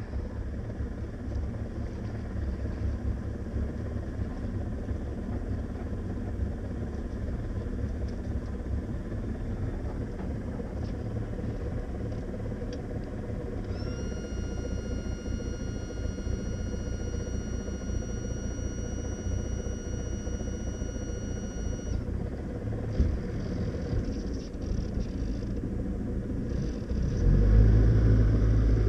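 Steady low rumble throughout. About halfway through, a steady high electronic tone sounds for about eight seconds, typical of a boat's ignition warning buzzer when the key is turned on. Near the end the Glastron 1700's engine starts and runs with a louder, deeper rumble.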